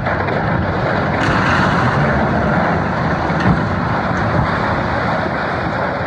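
A large rusty steel gantry structure toppling over into the sea: a loud, steady noise with a low rumble throughout, with no separate crashes.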